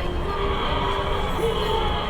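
Dramatic score from a 1950s sci-fi movie trailer: held orchestral notes, one sliding up in pitch partway through, over a background murmur of diners.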